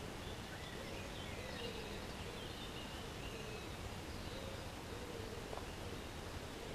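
Wild birds singing, short chirps and warbling phrases over a steady low background rush.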